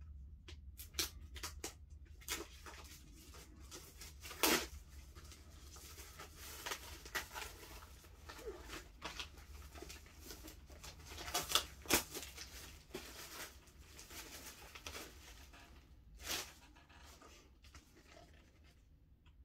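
Plastic shrink-wrap being torn and crinkled off a vinyl LP's gatefold sleeve, in irregular rustling crackles with a few louder ones about four and a half, twelve and sixteen seconds in.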